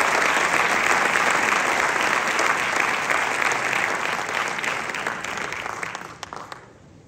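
Audience applauding, fading away about six seconds in.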